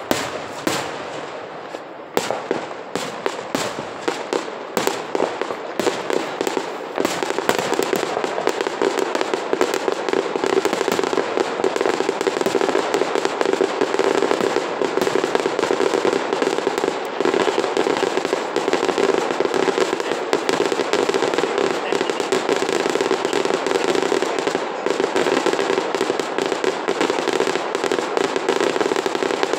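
Fireworks display: separate aerial shell bursts, each a sharp bang with a fading rumble, give way about seven seconds in to a dense, continuous barrage of rapid bangs.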